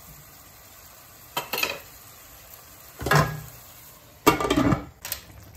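A wooden spoon knocking and scraping against a frying pan, then a glass lid clattering down onto the pan about four seconds in, the loudest sound. Onions sizzle faintly underneath.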